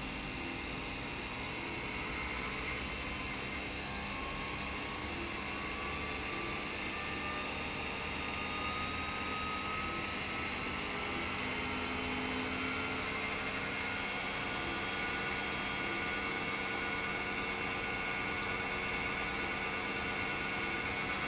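AE500S-H high shear mixer's motor running steadily with its rotor-stator disperser head churning water in a beaker. The whine slowly rises in pitch and grows a little louder as the speed is turned up.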